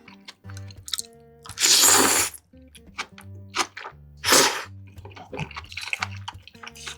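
Close-miked eating sounds: wet, squishy chewing clicks, with two louder noisy bursts about two and four and a half seconds in, over background music with steady bass notes.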